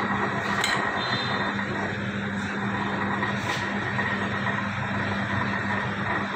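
Pipe ring-rolling machine running steadily, its electric drive giving a constant low hum with a faint high whine, and a few light metallic clicks.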